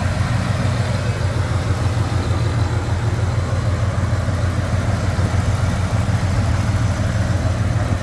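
Supercharged V8 of a Ford F-150 pickup idling steadily under the open hood, with an even low drone. It runs clean, with no engine noises.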